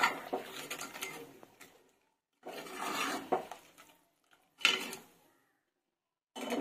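Steel ladle stirring a thin vegetable curry in an aluminium pressure cooker, scraping and knocking against the pot with liquid sloshing, in four short bursts.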